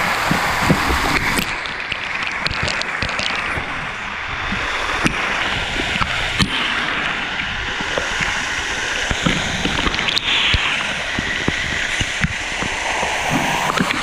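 Small waterfall pouring and splashing onto rock, heard from right behind the falling curtain of water, with scattered sharp clicks of drops striking close by.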